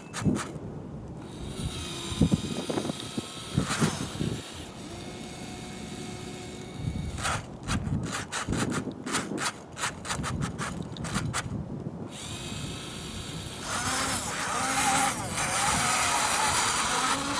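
Radio-controlled model wheel loader's electric motors and gears whirring as it tips gravel from its bucket into a model dump truck. A dense run of clicks about halfway through comes as the stones clatter into the truck's bed. The motor whine turns steadier in the last few seconds as the loader drives back.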